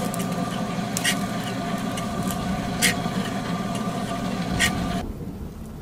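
A steady mechanical hum of several held tones, with a sharp click about every two seconds; it cuts off suddenly about five seconds in.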